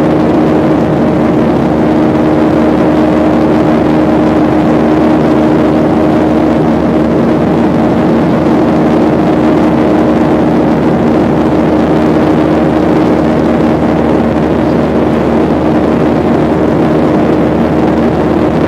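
Airliner engine noise at a steady pitch: an even, loud roar with a low, steady hum in it.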